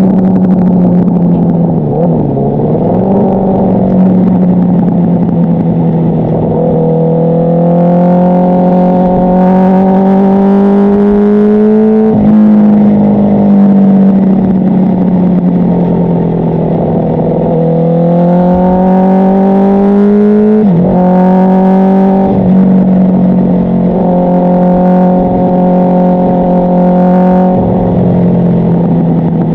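Honda CBR1000RR inline-four sport bike running through an aftermarket exhaust while riding on the road. The engine note climbs slowly under throttle, dips sharply a few times, then climbs again.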